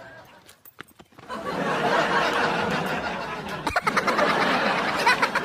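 A short, fairly quiet moment with a few clicks, then a burst of laughter from several people that starts about a second in and carries on.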